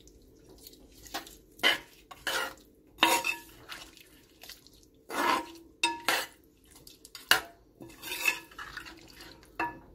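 Metal ladle stirring chicken curry in a metal pot, scraping and clinking against the pot in irregular strokes, a few of them with a brief metallic ring.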